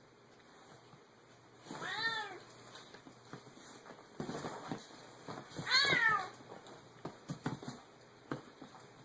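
A domestic cat meowing twice: two drawn-out meows that rise and fall in pitch, about four seconds apart, the second the louder. A few short soft knocks fall between and after them.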